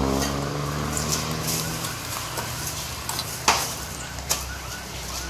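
A motor vehicle engine whose pitch falls as it fades over the first two seconds, then sharp metal clinks from stainless steel cups and utensils being handled, the loudest about three and a half seconds in.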